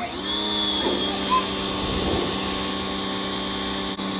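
Electric pressure washer motor spinning up at the start and then running steadily at a constant high hum, with a brief drop near the end.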